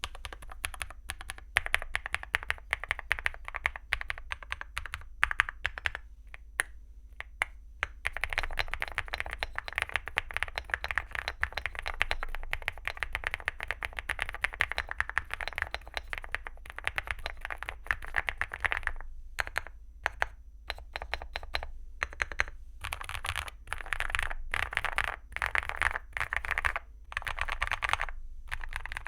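Typing on a Leobog Hi75 mechanical keyboard with KeyGeek Blush linear switches and XDA PBT keycaps: quick runs of keystrokes with some louder strokes among them. The typing pauses briefly about six seconds in and thins out to a few scattered strokes around twenty seconds.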